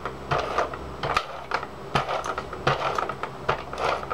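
Scotch Advanced Tape Glider, a hand-held adhesive tape gun, drawn in repeated short strokes across glitter cardstock: an irregular run of clicks and short rasps, several a second, as it lays down strips of adhesive.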